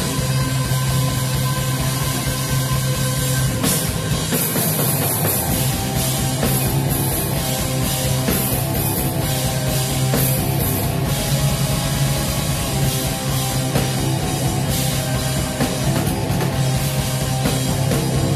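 A post-black metal band playing live at full volume: dense distorted guitars over a held low note, and a drum kit with a rapid, driving kick drum.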